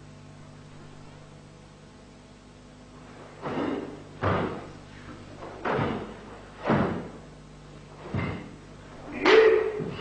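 A karateka's gi snapping and bare feet striking a wooden floor as kata techniques are executed. There are six sharp hits about a second apart, starting a few seconds in, and the last is the loudest.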